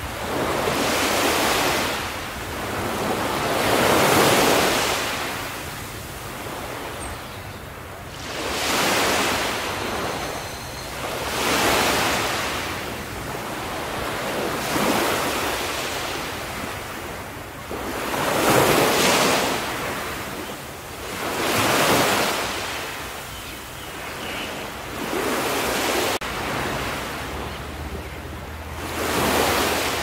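Small sea waves breaking and washing up a sandy beach, one swell of surf every three to four seconds.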